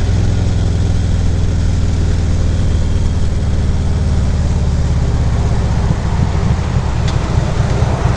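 Harley-Davidson Ultra Classic Limited's V-twin engine running steadily, heard loud and close through a helmet-mounted microphone.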